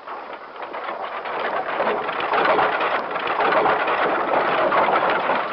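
Rocks tumbling and clattering in a rockslide: a dense, continuous rattling rumble that grows louder over the first couple of seconds and then holds.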